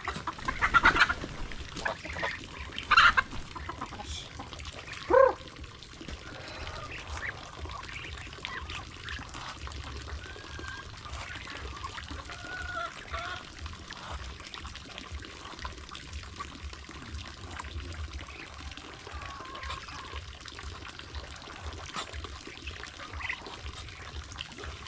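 Backyard ducks and chickens calling, with a few loud honking calls in the first five seconds, then softer scattered clucks and chirps. Water trickles steadily from a pipe into a trough.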